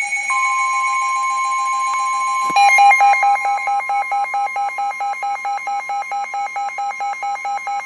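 NOAA Weather Radio's long, steady warning alarm tone sounding together with a weather alert radio's own alarm. The alarm is a continuous tone that, after a click about two and a half seconds in, switches to rapid, evenly pulsing beeps. The tones mark the start of a flash flood warning broadcast.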